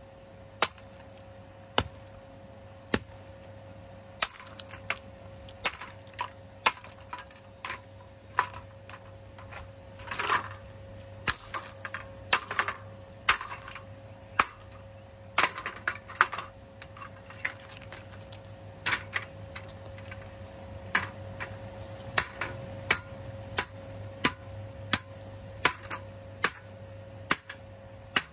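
A golf iron striking a wrecked Homemaker stand fan over and over, giving sharp cracks and clacks of breaking plastic and struck metal about once a second, sometimes two or three in quick succession.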